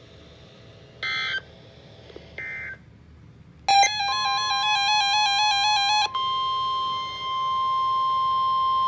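NOAA Weather Radio emergency alert sequence: two short bursts of SAME digital header data, then a weather radio receiver's alarm alternating between pitches for about two seconds over the steady 1050 Hz warning alarm tone, which carries on alone. It is the alert that opens a new severe thunderstorm warning broadcast.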